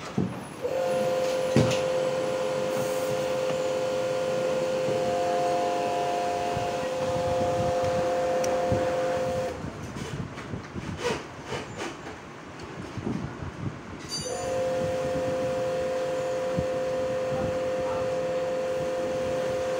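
A steady two-note tone from the car sounds continuously, stops about nine and a half seconds in, and starts again about fourteen seconds in. In the gap, small clicks and knocks of hands working at the steering wheel are heard.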